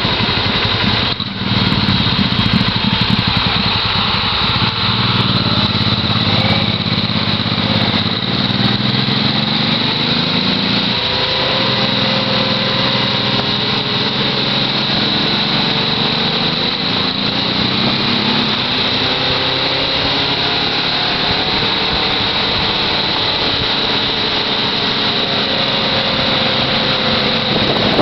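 Motorcycle engine running on the road, its pitch climbing several times as it accelerates and shifts up through the gears, with a brief drop about a second in.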